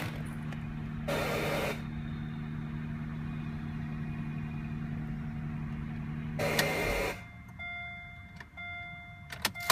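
2009 Acura MDX's 3.7-litre V6 idling with a steady low hum, broken twice by a short loud hiss of under a second each: the unexplained hissing from the engine that starts after several minutes of idling. The hum stops about seven seconds in, and a chime then beeps twice.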